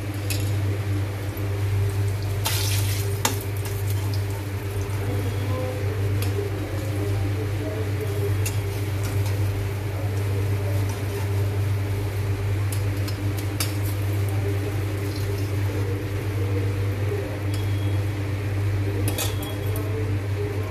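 A plastic spatula knocks and scrapes against a steel kadai and a steel bowl as fried brinjal slices are lifted out of hot oil and laid into curd. Oil sizzles faintly under a steady low hum, and a few sharp knocks stand out.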